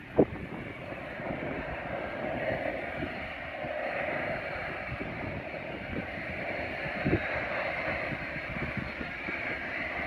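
Distant private jet's engines running at taxi power, a steady rushing sound that swells a little about a second and a half in. Wind buffets the microphone, with two short thumps, one just after the start and one about seven seconds in.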